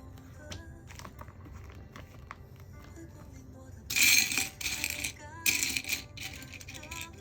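Soft background music, with four short bursts of rattling, jingle-like clatter starting about four seconds in.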